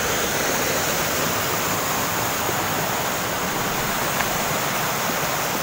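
Water pouring over a small concrete weir in an irrigation channel: a steady, even rushing.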